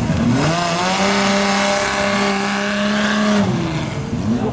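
Banger racing car engine revving up, held at high revs for a couple of seconds, then dropping off.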